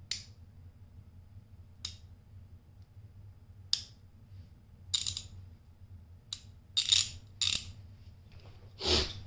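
Metal clinks and clicks from a Stanley hand ratchet and its parts being handled, about eight sharp ones at uneven gaps, with a fuller, louder one near the end.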